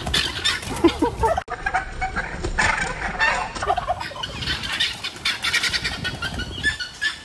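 Guinea fowl and turkeys calling over one another in a continuous, agitated clamour, with a short break about a second and a half in.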